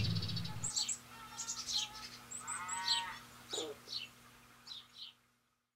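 Birds chirping in short, quick downward calls, with one longer call near the middle, as a low rumble fades out in the first second. All sound cuts off about five seconds in.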